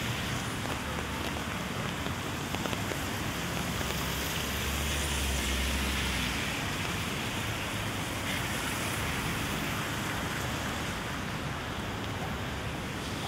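Steady rain, an even hiss throughout, with a low rumble that swells and fades about five seconds in.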